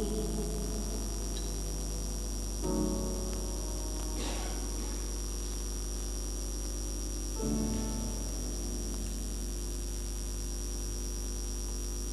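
Grand piano playing slow, sustained chords without the voice: one struck about three seconds in and another near eight seconds, each left to ring and fade. A steady electrical mains hum runs underneath.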